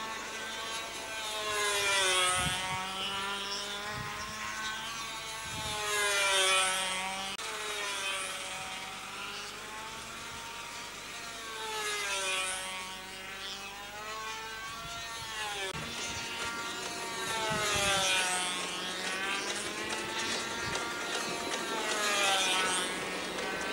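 A small engine droning, its pitch and loudness rising and falling in swells every few seconds, with a few short knocks in between.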